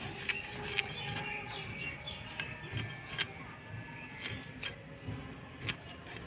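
Small China puti fish being scaled against the blade of a boti: irregular sharp scraping clicks as the scales come off, the loudest about four and a half and nearly six seconds in.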